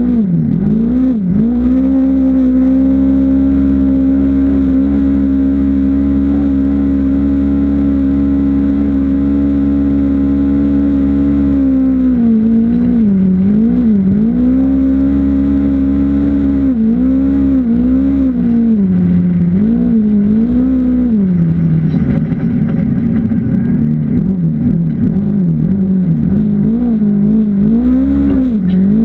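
Off-road vehicle's engine running hard at high, steady revs, then from about twelve seconds in the revs dip and climb again several times.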